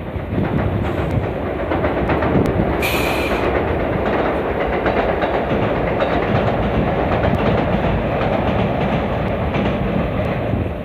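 Electric train on the JR Nara Line passing close by, a steady loud rumble, with a brief high hiss about three seconds in.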